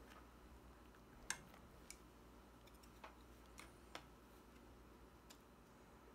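A silicone ladle scooping creamy sauce in a frying pan, giving a few faint, scattered clicks and taps against the pan; otherwise near silence.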